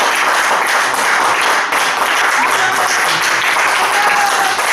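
Applause: a group clapping steadily and without a break.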